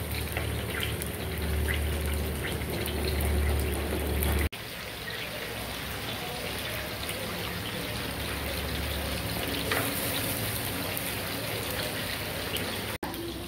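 Onion, ginger and garlic paste sizzling steadily in hot oil in a clay pot, being sautéed until the oil separates. The sizzle breaks off sharply for a moment about four and a half seconds in.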